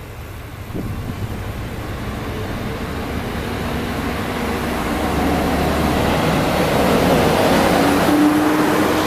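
Hisatsu Orange Railway diesel railcar pulling away and passing close by, its engine and running noise growing steadily louder as it gathers speed, with a steady engine tone in the last few seconds.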